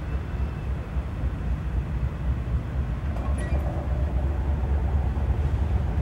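Low, steady rumble of a train approaching out of sight, with a few faint high squeaks about three seconds in.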